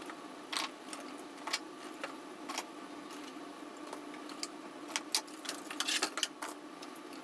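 Steel pliers clinking against each other and the metal toolbox drawer as they are picked up and lifted out by hand, an irregular scatter of light clinks that comes thicker near the end, over a faint steady hum.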